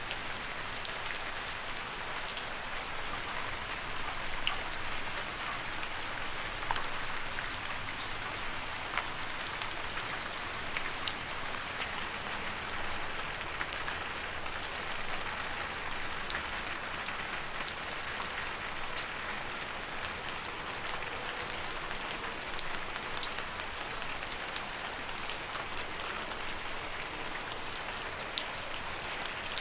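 Steady rain falling, a continuous patter with many individual drops ticking sharply on a surface.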